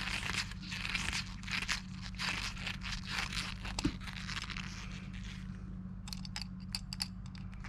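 Irregular scraping and crunching of a tool and small metal parts being worked during carburetor disassembly, with a few light clicks near the end, over a steady low hum.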